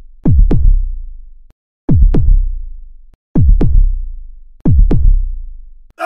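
Heartbeat sound effect: deep booming double thuds, lub-dub, four times about every one and a half seconds, each fading out before the next.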